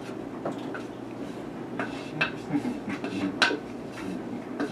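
A wooden spoon scraping and knocking inside a metal ice cream churn canister: a handful of short clinks and knocks, the loudest about three and a half seconds in.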